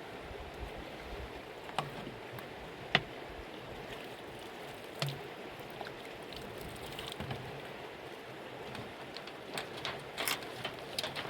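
Steady rush of a mountain river, with a few sharp clicks and knocks scattered through, the loudest about three seconds in and several close together near the end.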